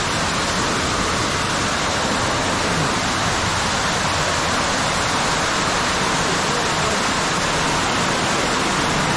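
Underground waterfall: a loud, steady rush of falling water.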